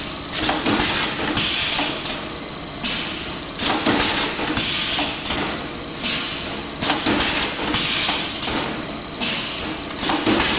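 Wire ring forming and welding machine running through its cycle: a sharp knock about every three seconds, with a hissing burst of about a second between knocks, over a steady machine noise.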